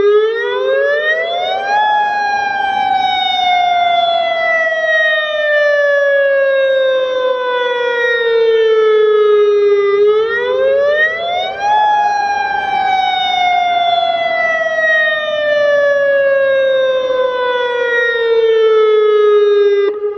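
AHAB tsunami warning siren sounding its wail tone during a system test. The pitch climbs quickly for about two seconds, then slides slowly down over about eight seconds, and this happens twice.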